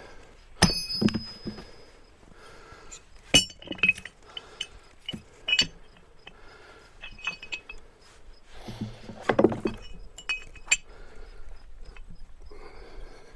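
Steel maul striking steel splitting wedges driven into an oak log: a series of sharp metal-on-metal clanks with a high ring, spaced irregularly a second or several apart.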